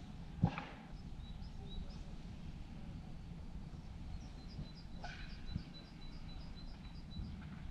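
A small songbird singing outdoors: a run of short high notes, about four a second, through the second half, with a few scattered notes earlier. Under it is a steady low outdoor rumble, and a single sharp knock comes about half a second in.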